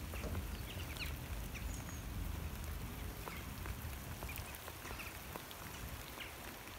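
Light rain falling, a steady hiss with scattered drop ticks over a low rumble.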